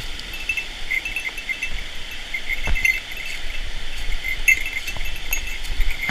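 Steady rush of a mountain stream, with short runs of a high, repeated chirping call over it and one faint knock near the middle.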